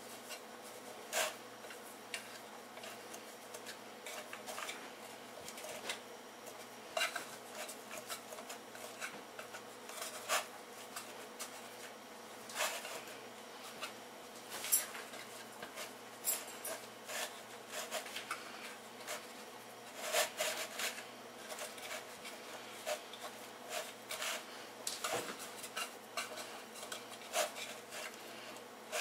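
Hands pressing biscuit dough circles into the cups of a metal muffin tin: irregular light clicks and taps as fingers and the tin knock against the pan, with soft rubbing of dough between them.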